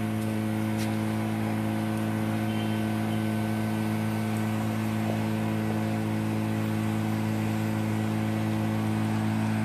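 Honda GX35 four-stroke brush cutter engine running at a steady, unchanging speed.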